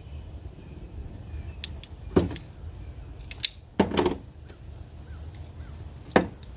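2011 Toyota Camry's fuel pump access cover being pried loose from its sealant under the rear seat. There are sharp snaps and pops, loud ones about two seconds in, around four seconds in and near the end, with lighter clicks between.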